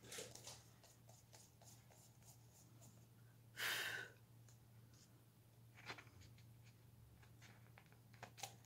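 Near silence with faint scratching of a PanPastel sponge applicator rubbing pastel through a plastic stencil onto paper, and one louder rub a little over three and a half seconds in.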